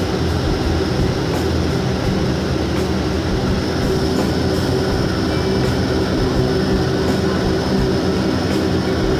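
Steady airliner cabin drone heard from a window seat: engine hum and rushing air, loud and unchanging, with a low steady hum running under it.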